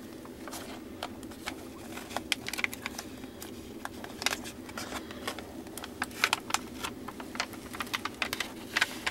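Clear plastic cover film on a diamond painting canvas crinkling as it is handled and peeled back from the sticky adhesive, in many irregular sharp crackles that grow busier after the first couple of seconds.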